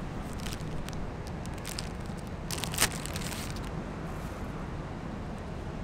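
Small food packaging handled by hand: scattered light crackles and clicks, then about a second of dense crinkling and tearing, with one sharp snap, starting about two and a half seconds in.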